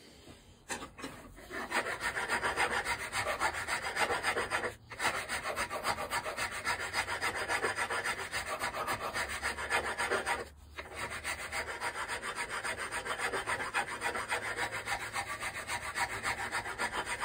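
Rapid back-and-forth hand strokes of an abrasive tool on the cast iron base of a small vice, several strokes a second, with two brief pauses about five and ten seconds in. This smoothing takes off casting flashing and grind marks.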